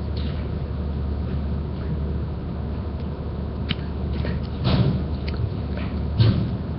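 Steady low hum with a few soft thumps and clicks over it, the loudest about five seconds in and again just after six seconds.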